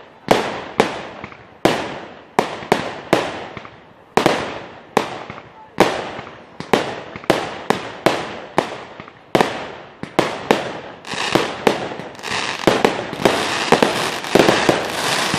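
Aerial firework shells bursting in quick succession: sharp bangs, one or two a second, each trailing off in echo. About three-quarters of the way through, the bangs come faster and merge into a dense crackling volley.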